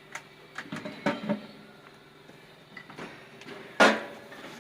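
Scattered light knocks and clatter of work on machinery, with one loud, sharp bang just under four seconds in, over a faint steady hum.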